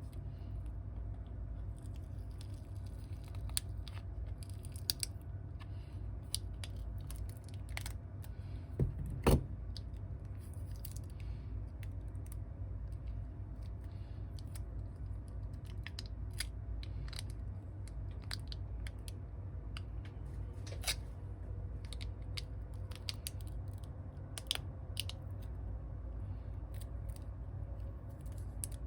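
Small repair tools clicking and tapping against an iPhone 8 Plus during disassembly, in scattered light clicks with one louder knock about nine seconds in, over a steady low hum.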